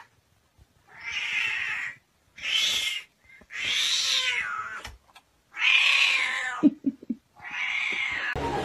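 Siamese-type cat yowling in five long, drawn-out meows while carrying a computer mouse in its mouth like prey.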